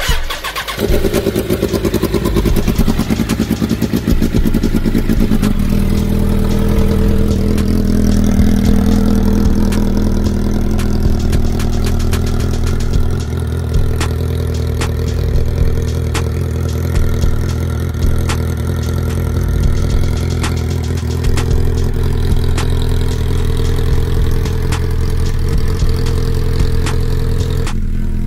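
A motorcycle engine in a homemade go-kart starts on its electric starter and catches at once. It runs unevenly at a higher speed for about five seconds, then settles into a steady idle.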